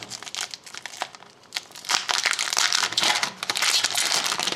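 Foil wrapper of a hockey card pack crinkling as it is opened and pulled off the cards. There are scattered light clicks at first, then dense crinkling from about two seconds in.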